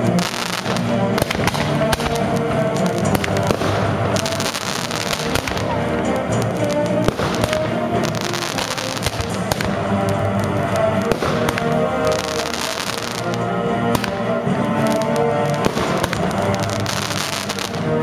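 Aerial fireworks bursting one after another, with many sharp reports and crackle, over continuous music.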